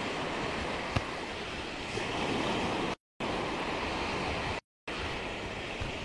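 Steady rush of sea surf breaking on the beach, heard through a phone's built-in microphone. The audio cuts out completely twice for a moment near the middle.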